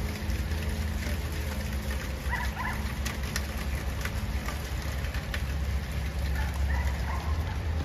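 Rain falling steadily, with scattered drops ticking, over a steady low hum. A few short bird chirps come about two and a half seconds in.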